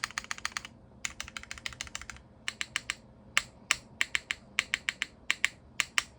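Typing on a custom mechanical keyboard: a Keycult No. 2 with a stainless-steel bottom and polycarbonate plate, with Cherry MX Black linear switches polished with diamond paste and GMK keycaps. A quick run of keystrokes, a short pause, a second quick run, then slower single strokes at even spacing in the second half.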